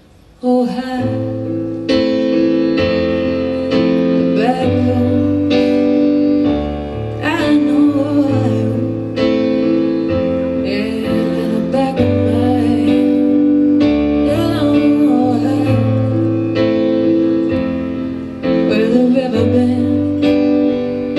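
Live band playing a slow song: sustained electric piano chords over a bass guitar line, with a woman singing. The music starts about half a second in, after a short quiet pause.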